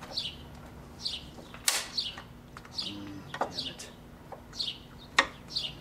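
A bird repeating a short falling chirp about once a second. Three sharp knocks cut across it, the last and loudest near the end, from prying the plastic intercooler mounting clips loose.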